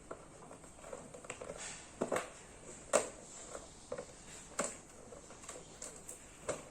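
Scattered sharp clicks and taps from a black-capped lory rummaging in a medicine box and handling the box and its contents. The taps come irregularly, a few seconds apart, the loudest about three seconds in.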